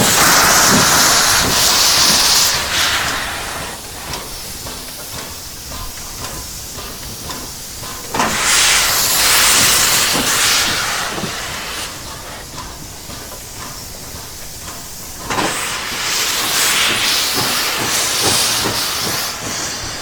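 Class L 2-10-0 steam locomotive pulling away, venting steam in three long loud hisses: at the start, about 8 seconds in and about 15 seconds in. Quieter stretches between them carry repeated short knocks.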